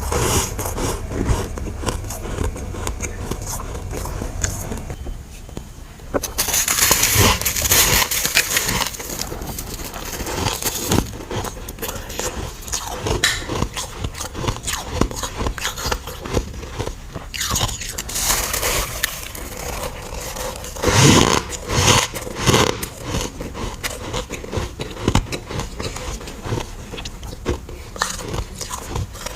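Biting and chewing of freezer frost chunks: a long run of crunching, scraping bites, with louder clusters about six seconds in and again around twenty-one seconds.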